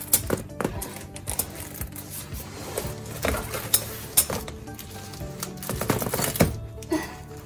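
Background music with a steady low bed, over irregular clicks and clatter from the frame bars and fabric of a soft-sided collapsible pet crate being handled.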